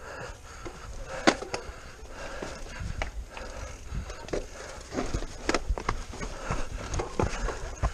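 Mountain bike riding down a rocky, muddy dirt singletrack: tyres rolling over dirt and stones with irregular knocks and rattles from the bike, the sharpest knock about a second in, over a steady low rumble.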